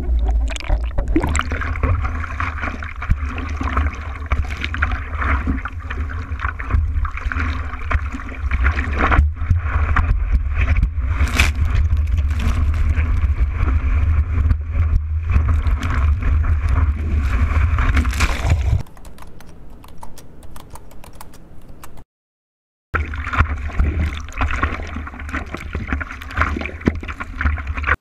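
Sea water rushing and splashing over a surfboard-mounted action camera, with a heavy low buffeting rumble and many small crackling splashes. The rumble drops away about nineteen seconds in; near the end the sound breaks off for about a second and then resumes.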